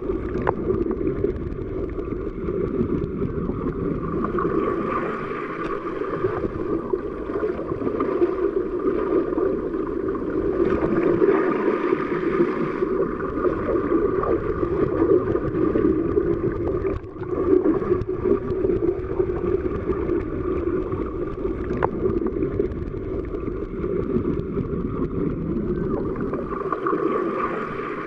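Underwater ambience: a steady, muffled rush of water noise with no clear individual events, briefly dipping about two-thirds of the way through.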